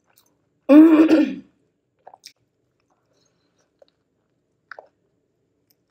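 Eating sounds from a person chewing a fried chicken burger. About a second in there is a short voiced hum from the eater, the loudest sound. After it come a few faint, soft mouth clicks from chewing and biting.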